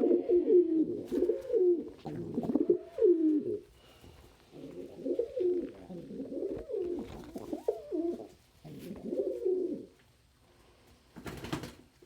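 Domestic pigeons cooing, one coo running into the next almost without a break, then a lull of a second or so near the end followed by a short burst of noise.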